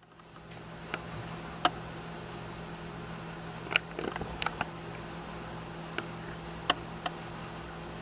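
Male brown-headed cowbird pecking seed on a clear plastic feeder tray: scattered sharp taps, a few close together about four seconds in, over a steady low hum.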